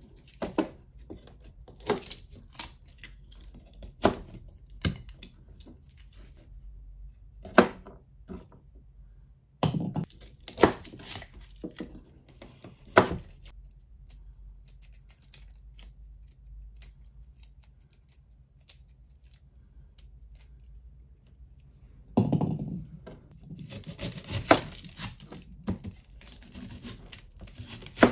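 Garlic cloves being peeled by hand: dry papery skins crackling and tearing, with scattered sharp taps on a plastic cutting board. Near the end a thump and denser crackling as an onion is cut and its skin peeled with a knife.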